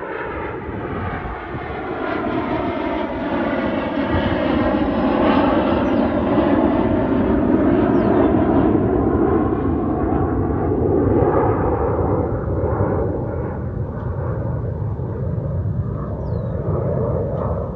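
Aircraft flying over, a steady engine drone with several bending tones that swells to its loudest around eight seconds in and then eases off.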